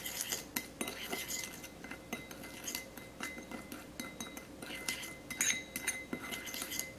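Metal spoon stirring a thick seasoning paste in a ceramic bowl. It makes repeated, irregular clinks and scrapes against the bowl.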